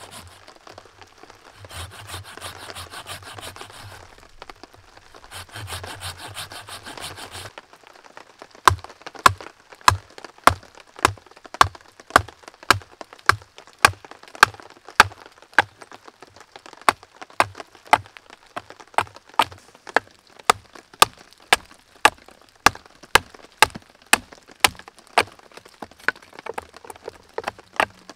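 A hand saw cutting through a dead branch in three spells of rasping back-and-forth strokes. About eight seconds in, the sawing gives way to a long run of steady, evenly spaced chops into the wood with a Condor Pack Golok, about two strikes a second.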